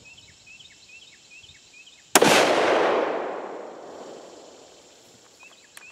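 A single shot from a .308 Ruger Precision Rifle about two seconds in: a sharp crack followed by an echo that fades away over about three seconds.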